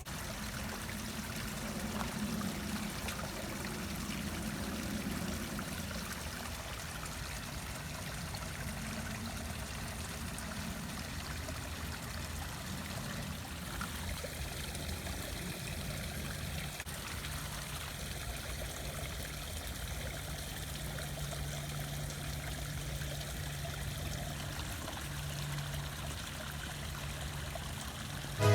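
Running water trickling steadily, with a faint low hum in the second half.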